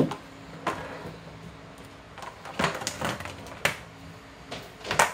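Irregular sharp knocks and clatters, about a dozen, of household objects being handled and set down, loudest right at the start and near the end, over a faint low steady hum.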